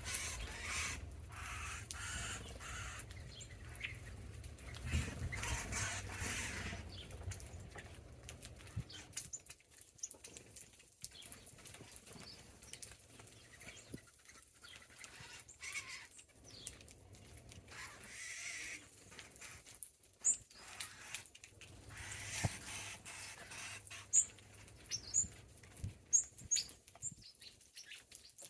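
Small birds feeding: a few short, high chirps, mostly in the last third, among scattered rustles and light taps. A low rumble underlies the first nine seconds or so, then stops.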